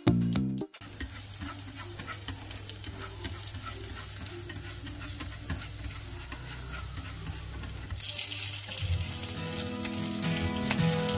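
Chopped garlic sizzling in hot oil in a frying pan, a steady hiss with small crackles. About eight seconds in the sizzle grows louder as raw shrimp are laid into the pan.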